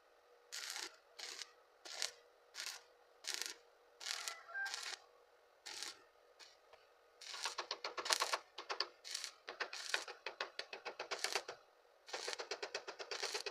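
Welding arc crackling, first in a string of short bursts about two thirds of a second apart, like quick stitch or tack welds, then in a longer run of dense rapid crackle. The run breaks off briefly before the arc is struck again.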